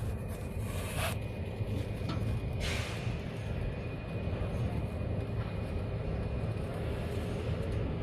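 The rice combine harvester's 102 hp diesel engine running steadily, with a low even drone. Two brief whooshes come in the first three seconds.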